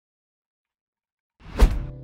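Dead silence, then about a second and a half in a sudden whoosh sweeping down into a deep thud, an edited transition sound effect, with background music starting right after it.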